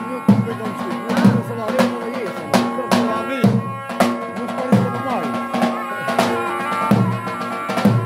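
Zurna (folk shawm) playing a wavering, ornamented melody over steady held tones, with a tupan (large double-headed bass drum) beating strong strokes roughly every 0.7 seconds: traditional Balkan wedding dance music.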